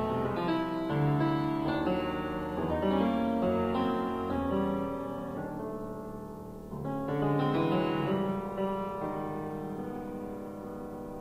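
Solo piano playing a dense passage of overlapping notes. About seven seconds in, a fresh chord is struck and left to ring, fading away slowly.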